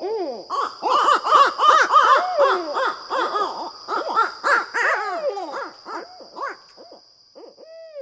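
Barred owls calling in a wild, rapid run of rising-and-falling hoots and cackles, their caterwauling chorus, dying away toward the end. A steady high-pitched tone hangs underneath.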